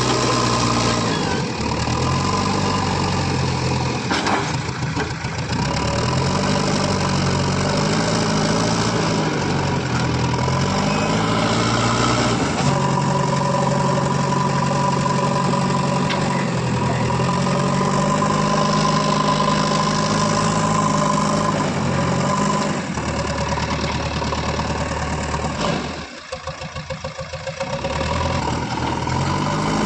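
Diesel engine of an earthmoving machine at work, its engine speed rising and falling repeatedly as it takes load. About 26 seconds in, the engine note drops and runs unevenly for a couple of seconds before picking back up.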